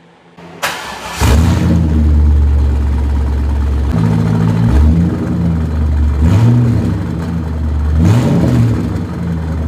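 C5 Corvette's 5.7-litre V8 running loud through cut-off exhaust pipes with the mufflers removed, coming in about a second in and revved in three short blips.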